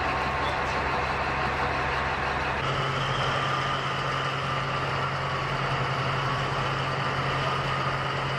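Heavy-equipment engine idling steadily. About two and a half seconds in, its tone changes abruptly to a different steady hum.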